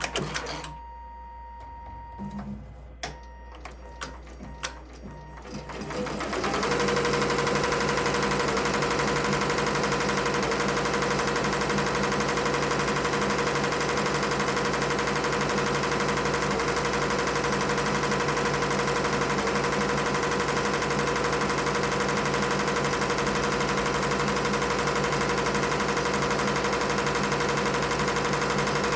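Multi-needle embroidery machine stitching at speed. It is quieter with a few scattered clicks for the first few seconds, then runs at a steady, even rate from about six seconds in.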